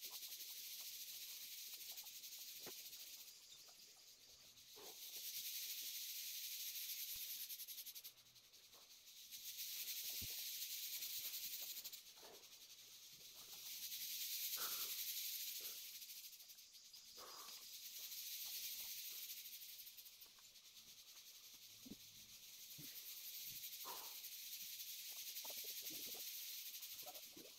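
A shrill insect chorus buzzing high in pitch, swelling and fading in waves every few seconds, with a few faint scattered clicks.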